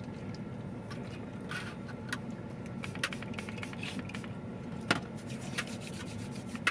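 Steady low hum of a vehicle heard from inside its cabin, with scattered small clicks and rustles of handling and one sharper click about five seconds in.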